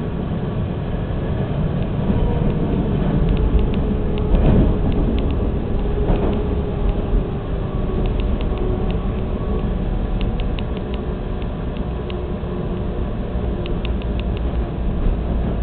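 Subway train running along open track, heard from inside the car: a steady rumble with a faint motor whine and, every few seconds, a cluster of quick clicks.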